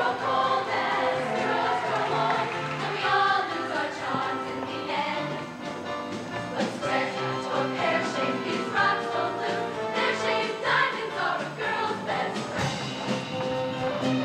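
High school show choir singing a song together over musical accompaniment.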